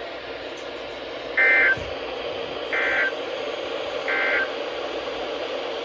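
Three short bursts of EAS SAME digital data tones, the end-of-message code of a NOAA Weather Radio alert, about 1.3 s apart. The first burst is the loudest, and all three sit over the radio's steady static hiss.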